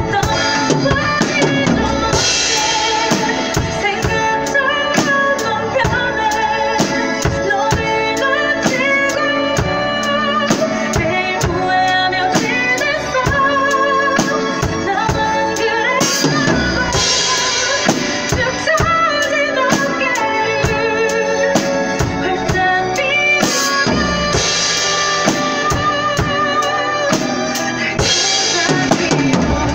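Acoustic drum kit played live along with a recorded pop ballad: regular kick and snare strikes under the song's sung melody, with cymbal crashes at several points.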